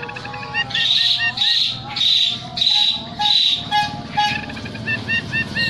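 Caged emprit (munia), whose song the owner says carries zebra dove and canary phrases, singing: a string of short repeated chirps. In the middle comes a run of five loud harsh notes about half a second apart, then a quick rattling trill and more chirps.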